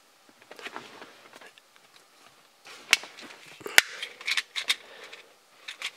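Small plastic clicks and taps from a cassette tape adapter's shell being handled and fitted back together, with one sharp snap nearly four seconds in.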